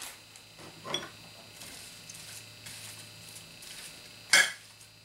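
Medium utility knife blade clinks sharply once against a ceramic bowl about four seconds in, while cutting cheese into fried potatoes, after a softer tap about a second in. A faint steady low hum lies underneath.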